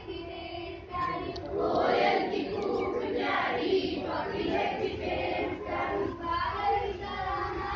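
A group of schoolchildren singing the school prayer together in unison, the voices growing louder about a second and a half in.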